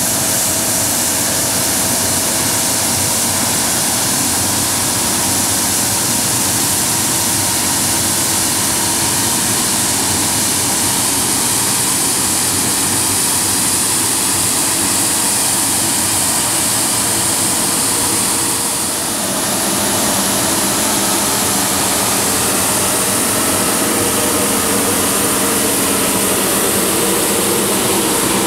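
CityCat 5000 compact street sweeper working: its engine and suction fan running steadily with a strong high hiss as the brushes sweep the paving. The sound dips briefly about two-thirds of the way through.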